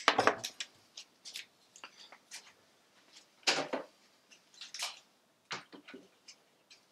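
Scattered sharp clicks and knocks of plastic quick-release bar clamps being worked and taken off a wooden drawer, with a louder knock about three and a half seconds in.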